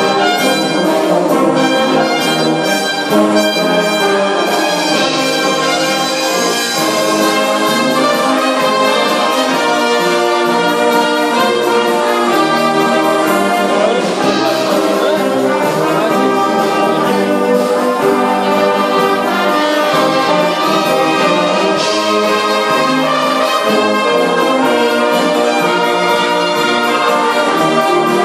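Brass band with tubas, euphoniums, trombones, trumpets and flutes playing a piece together under a conductor, full and steady with sustained chords throughout.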